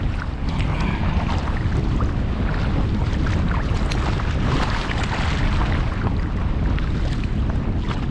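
Wind buffeting the camera microphone as a dense, steady low rumble, with scattered small splashes and drips of water over it.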